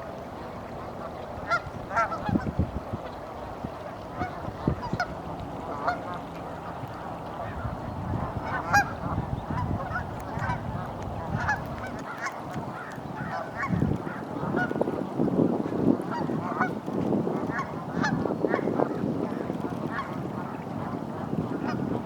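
A flock of Canada geese honking, many short overlapping calls, getting busier about halfway through.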